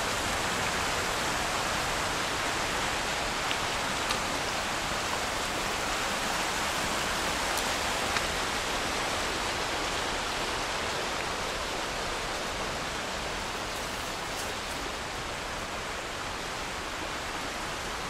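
The River Nevis rushing through the gorge, a steady noise of white water that eases slightly in the second half.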